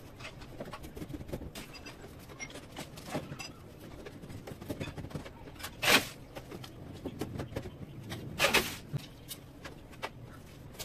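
Light clicks and knocks of PVC ceiling panels being handled and pressed into place, with two louder short bursts of noise about six and about eight and a half seconds in.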